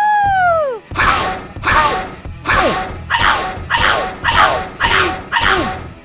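A short sound effect repeated about eight times, one every two-thirds of a second or so, each a noisy burst with a falling tone, over background music.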